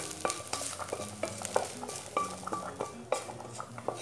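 Metal spoon scraping and tapping sautéed garlic and onion out of a metal pan into a pot of beans: a run of quick metal-on-metal scrapes and clinks, some with a short ring.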